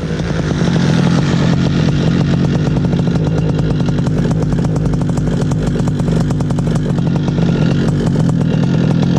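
Paramotor engine and propeller running steadily at an even speed, with a rapid buzzing firing beat.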